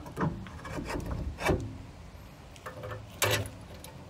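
Metal bike-rack upright being worked into its mounting socket: scraping metal on metal with several knocks and clunks, the loudest about three seconds in.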